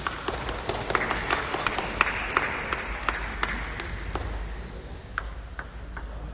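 Table tennis balls being struck by bats and bouncing on tables: a quick, irregular string of sharp clicks from more than one rally at once in a large hall.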